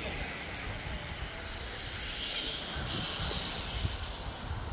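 Road bicycles passing close by: a steady hiss of tyres and freewheels that swells about two seconds in and shifts suddenly near three seconds, over a low rumble.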